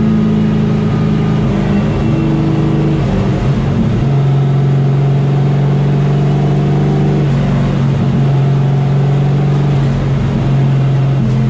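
Limited late model race car's V8 engine running hard, recorded on board. Its note drops about four seconds in and climbs again a few seconds later.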